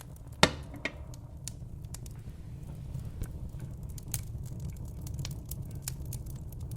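Campfire crackling, with scattered snaps and one loud pop about half a second in, over a steady low rumble.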